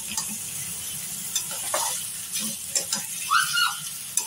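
Jackfruit, potato and pea curry sizzling in a metal kadai while a metal spatula stirs and turns it, scraping and knocking against the pan: the jackfruit being fried down dry in the masala before water goes in. A brief high squeak about three quarters of the way through.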